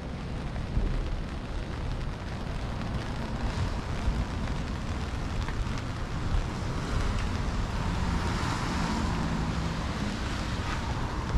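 Wind rumbling on the microphone over the steady hiss of a wet city street in the rain. A vehicle swells past on the wet pavement about two-thirds of the way in.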